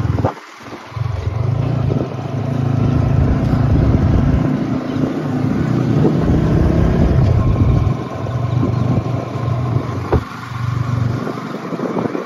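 Motorcycle running along the road, with a heavy low rumble that comes and goes.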